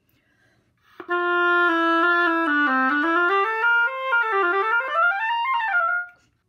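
Oboe played on a reed made on a Caleb -1 shaper tip: a short phrase of separate notes starting about a second in, stepping down a little, then climbing to a high note and stopping near the end. Its tone is really pleasant.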